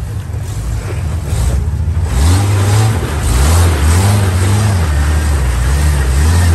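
An off-road vehicle's engine revving up and down while rock crawling. It gets louder about two seconds in.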